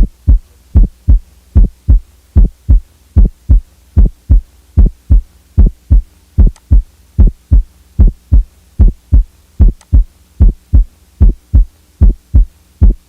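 Recorded heart sounds heard by auscultation: a steady heartbeat rhythm of low thumps in which the first heart sound is widely split into its two components (mitral and tricuspid closure), followed by the second sound. A wide split of the first sound is abnormal. It comes from the two ventricles contracting out of step, for example in right bundle branch block.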